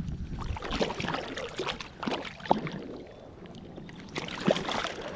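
Water splashing as a hooked largemouth bass thrashes at the surface close to the float tube, with two sharper splashes standing out about two and a half and four and a half seconds in.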